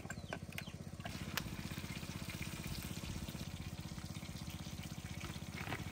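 Oil sizzling as chicken wings deep-fry in a wok, over a steady low throb of a small engine or motor running throughout. A few sharp clicks in the first second and a half.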